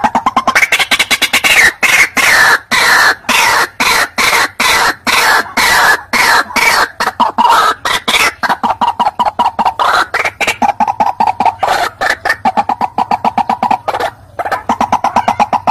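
White-breasted waterhen (ruak-ruak) calling: a loud, fast string of harsh repeated notes, several a second, that settles about halfway into a steadier, lower-pitched run of notes, with a brief break near the end.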